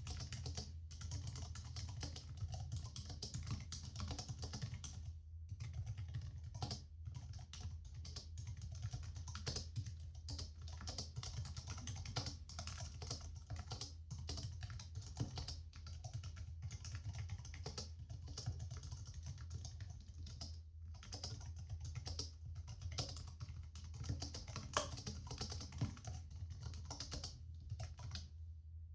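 Continuous typing on a laptop keyboard: rapid, irregular key clicks with a few brief pauses, over a steady low hum. The typing stops just before the end.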